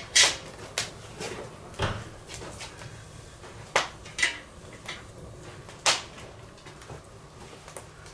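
A cast-iron Dutch oven's wire bail clanking on a tripod hook as the pot is hung over a wood fire: a handful of sharp knocks a second or two apart. Steady wind noise rumbles on the microphone underneath.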